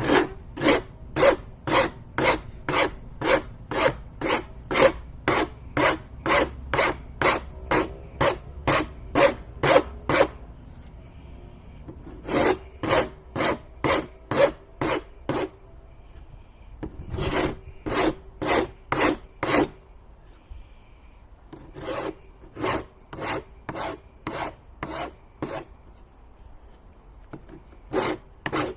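Shinto rasp (a rasp made of riveted saw blades) filing wood to shape it: quick, even rasping strokes about two a second, in runs of several seconds broken by short pauses.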